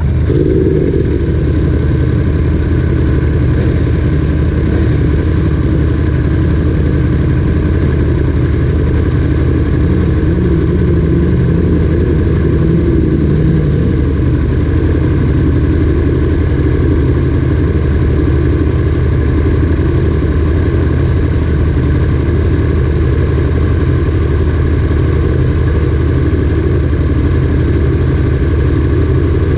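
Sport motorcycle engine idling steadily in neutral, warmed up to running temperature.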